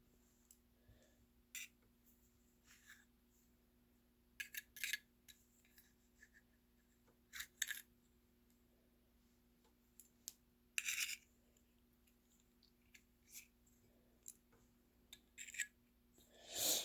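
Needle-nose pliers clicking and scraping against a Zippo lighter's metal insert while pulling out its parts: a few short, faint metal clicks and scrapes, scattered, over a faint steady hum.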